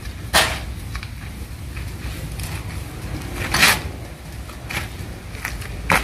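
A few knocks and scrapes of a log being loaded onto a two-wheeled hand cart, the loudest a short scrape about three and a half seconds in, over a steady low rumble.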